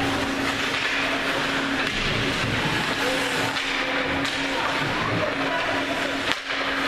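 Ice hockey rink sound: skate blades scraping and carving the ice during play, over a steady low hum and faint voices of spectators.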